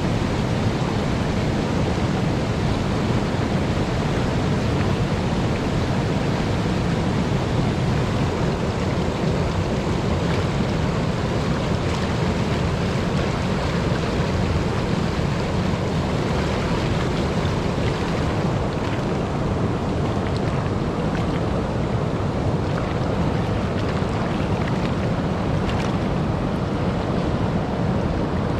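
Floodwater rushing over a river weir and churning below it: a steady roar of water.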